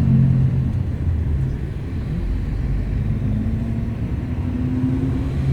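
Bus engine and road rumble heard from inside the passenger cabin, a steady low drone. The engine note rises slightly about three seconds in.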